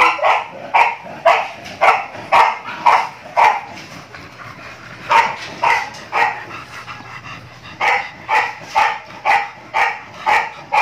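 Dog barking repeatedly, about two barks a second, in runs with a couple of short pauses.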